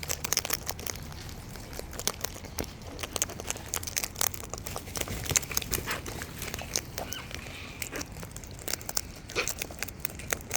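Wild parrots nibbling and cracking food close to the microphone: a dense run of irregular sharp clicks and crunches with soft rustling.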